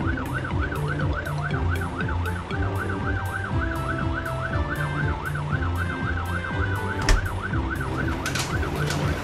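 A cartoon fire engine's siren wailing up and down quickly, about three times a second, over background music with a low bass line. A single sharp knock about seven seconds in.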